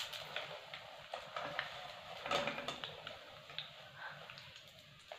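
Frying oil sizzling and fading as a wire spider strainer full of fried potato sticks is lifted out and held to drain over the pan, with scattered light clicks and ticks.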